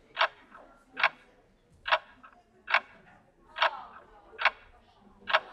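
Ticking sound effect: sharp single ticks, evenly spaced, a little more than one a second.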